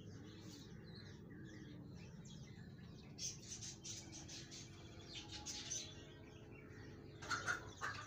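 Birds chirping in short, quick calls over a faint steady background hum, starting about three seconds in and growing louder near the end.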